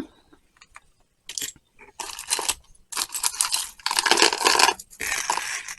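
Jewelry being handled: several bursts of jangling and rustling as a long metal chain necklace is picked up and moved about.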